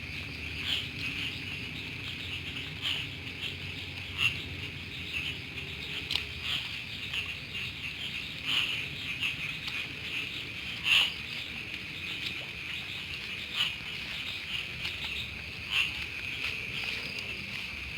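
Night insects, crickets, trilling steadily at one high pitch, with irregular short taps every second or two.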